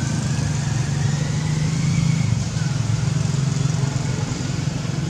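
A motor vehicle's engine running with a steady low hum, with a faint whine rising slowly in pitch over the first two seconds.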